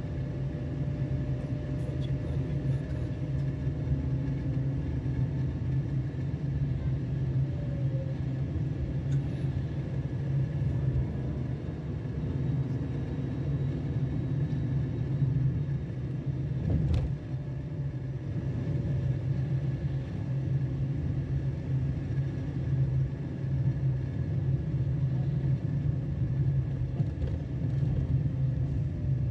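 Steady low outdoor rumble, with one sharp knock about seventeen seconds in.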